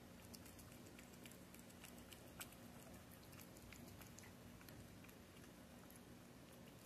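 A cat chewing and licking chunks of wet cat food from a plate: faint, irregular wet clicks and smacks, with one sharper click about two and a half seconds in.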